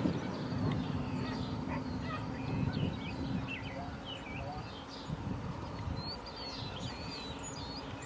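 Birds singing, many short chirps and warbling calls, over the low steady rumble of approaching freight diesel locomotives.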